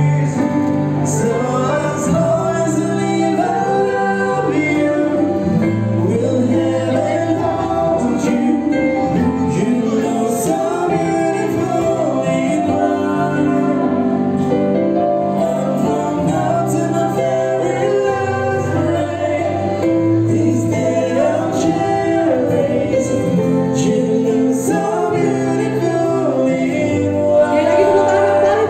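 A song plays steadily: singing over instrumental accompaniment with a sustained bass line.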